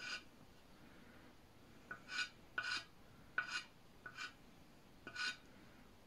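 Chalk scratching on a terracotta plant pot in short drawing strokes, about six in all, as a design is sketched.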